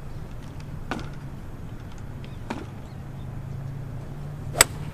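A golf club striking a ball on a driving range: one sharp crack near the end, with two fainter clicks of strikes earlier, over a low steady hum.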